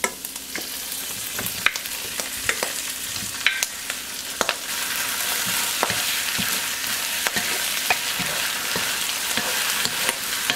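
Taro cakes stir-fried with minced pork, carrot and wood ear mushroom in a nonstick wok: a steady sizzle of hot oil, with a wooden spatula knocking and scraping against the pan. The sizzle grows louder about four and a half seconds in.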